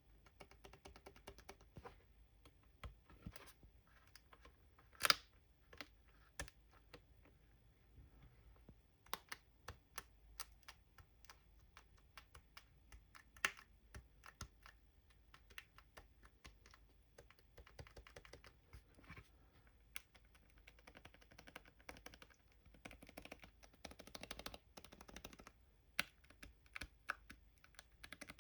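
Butterfly keys on a 2015 12-inch MacBook keyboard clicking faintly as they are pressed over and over at an irregular pace, the keys being sticky. One louder click comes about five seconds in, and the clicks grow denser a little past the middle.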